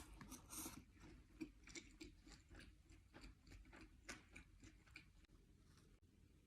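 A person chewing sushi close to the microphone: soft, irregular wet mouth clicks.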